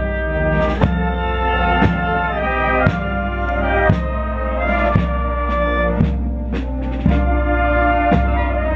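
Brass band playing, trumpets and trombones holding notes over a bass drum struck about once a second.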